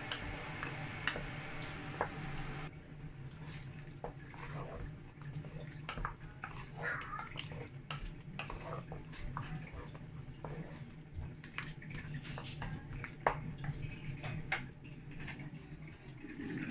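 A wooden spoon stirring a thick okra soup in a large pot: wet stirring sounds with irregular taps and scrapes of the spoon against the pot, over a steady low hum.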